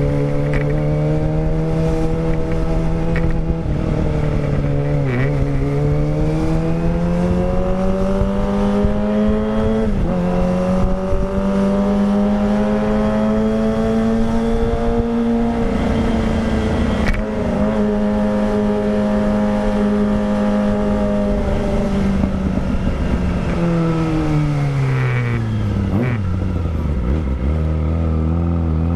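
Kawasaki Ninja ZX-25R's 250 cc inline-four running through a Villan Pro 1 full-system aftermarket exhaust while riding. The engine note dips briefly about five seconds in, climbs and holds steady through the middle, then drops away as the revs fall near the end before rising again.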